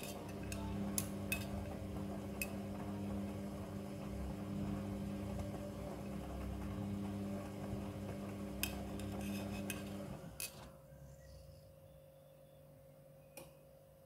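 Midea front-loading washing machine in its wash cycle: the drum motor hums steadily while hard bits on the tumbling laundry click against the drum. About ten seconds in the motor stops and the drum comes to rest, leaving only a faint steady hum and one last click.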